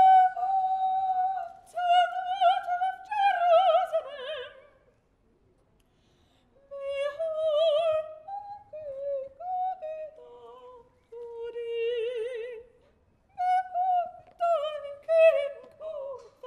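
A woman's solo voice singing unaccompanied in an operatic style: long held notes with wide vibrato, sung in phrases with short breaths between them and a longer pause of about a second and a half a third of the way in.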